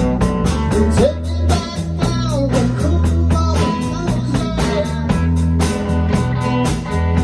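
Live rock band jamming: electric guitars, electric bass and a drum kit playing together, with a steady drumbeat and sustained low bass notes. Pitch-bending lead notes come through about a second in.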